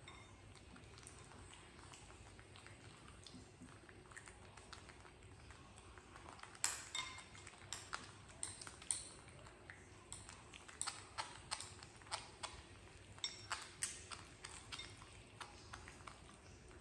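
Faint, irregular light clicks and clinks at a feeding table, with baby macaques picking cooked rice off the wooden tabletop and a spoon and ceramic bowl in use. They start about six seconds in, over a faint steady background hum.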